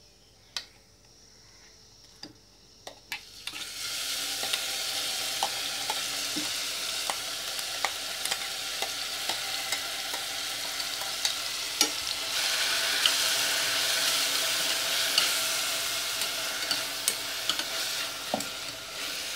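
Crushed shallots, ginger, garlic, green chillies and curry leaves hit hot coconut oil in a stainless steel pressure cooker about three and a half seconds in and sizzle steadily from then on. A spoon clicks and scrapes against the pot as the mixture is stirred.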